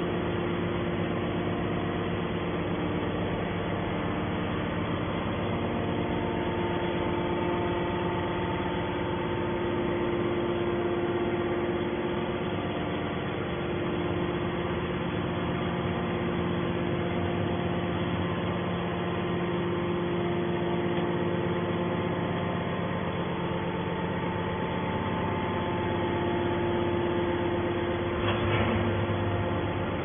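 Hydraulic scrap metal baler's power unit running steadily, an even machine hum made of several steady tones.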